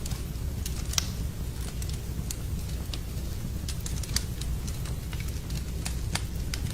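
Wood fire burning in a fireplace, crackling with sharp, irregular pops over a steady low rumble.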